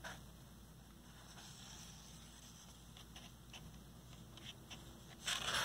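Faint handling sounds with a few light clicks, then a louder paper rustle near the end as a page of a picture book is turned.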